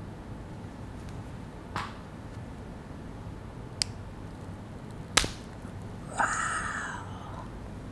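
Dark chocolate bar with a crunchy pistachio-kunafa filling being broken open: three sharp snaps, the loudest about five seconds in, then a crackle that fades over about a second.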